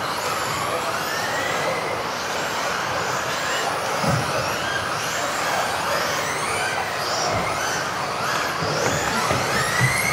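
Electric off-road RC cars of the modified motor class racing together: many overlapping high motor whines rising and falling as the cars speed up and slow down, over a steady rush of tyres on the floor.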